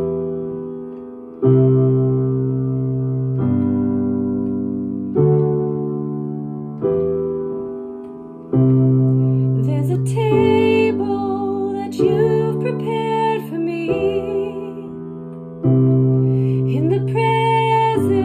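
Piano playing slow chords, one struck about every couple of seconds and left to ring and fade. About ten seconds in, a woman's voice starts singing over the piano, with vibrato on held notes.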